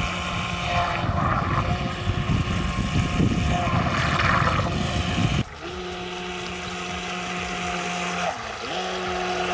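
A ProBoat Miss GEICO 17-inch RC catamaran's 380 brushed electric motor whining steadily as the boat runs on the water. Wind rumbles on the microphone for the first half, then drops away. Near the end the whine dips in pitch and climbs straight back.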